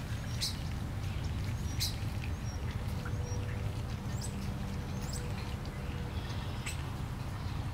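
Birds chirping briefly a few times, high and short, over a steady low rumble.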